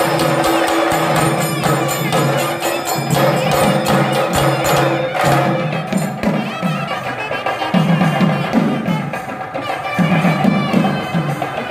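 Traditional Tamil temple procession music: held melodic tones over repeated drum strokes and light clicking percussion.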